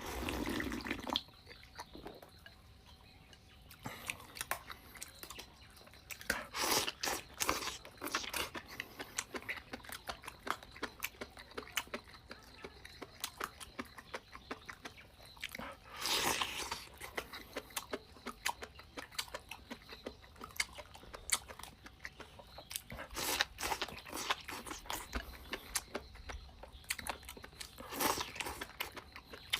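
A person eating chicken stewed with deer antler mushrooms close to the microphone: irregular chewing and biting, with crunches and smacks and a few louder bursts of bites spread through.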